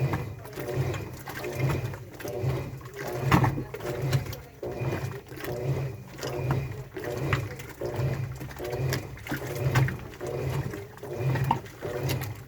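Washing machine running its wash cycle: the motor hums and surges in a regular rhythm, about one and a half pulses a second, as the drum turns the load back and forth.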